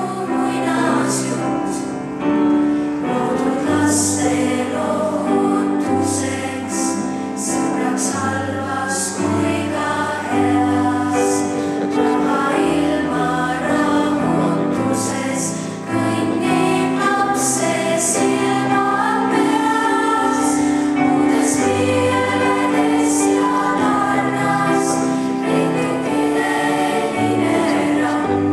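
Children's choir of girls and boys singing a song in Estonian, with piano accompaniment.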